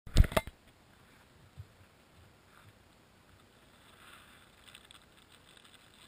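Two or three loud knocks of a GoPro camera being handled and set down in the first half second, then only faint background noise.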